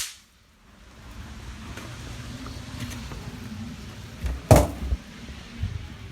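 A single bang snap cracking sharply about four and a half seconds in, over faint low background noise.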